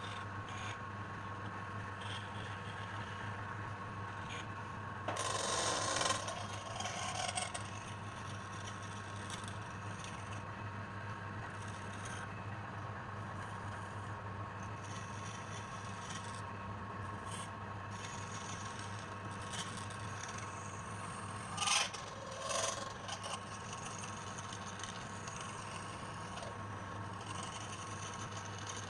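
Wood lathe running with a steady hum and whine. A turning tool or abrasive scrapes against the spinning wood in short rasping bursts, about five seconds in and again about twenty-two seconds in.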